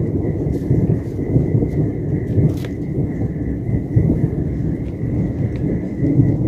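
Thunder rumbling low and continuously, swelling and easing, picked up on a phone's built-in microphone.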